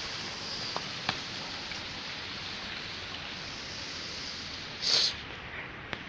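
Steady rush of water running and trickling over ice, apparently from a burst pipe, with a short louder burst of noise about five seconds in.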